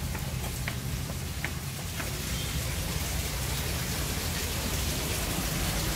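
Steady, even rushing noise with a low hum underneath and a few faint ticks.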